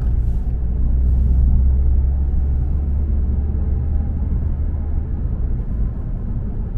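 Steady low rumble of engine and road noise inside the cabin of a Volvo S60 D2 diesel cruising at highway speed.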